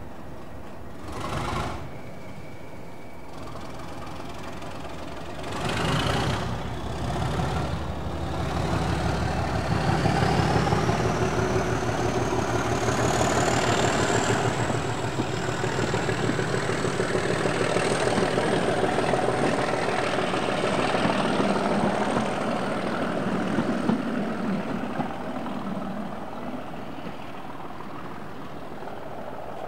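Diesel train engine running under power, with a high whine that rises steadily in pitch over several seconds. The engine gets loud about six seconds in and dies away near the end.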